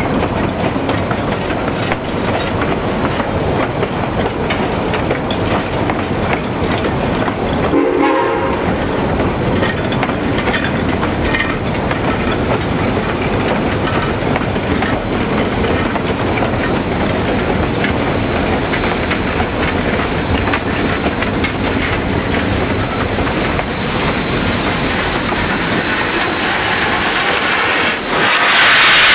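Narrow-gauge freight cars rolling slowly past, their wheels clattering over the rail joints, behind Denver & Rio Grande Western K-36 steam locomotive 489. A short whistle blast sounds about eight seconds in. Near the end the locomotive comes close with a loud hiss of escaping steam.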